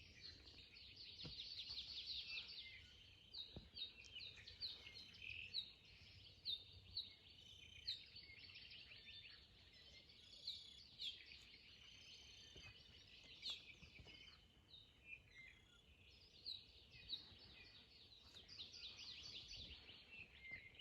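Faint chorus of small songbirds chirping and trilling, many short overlapping calls and quick trills.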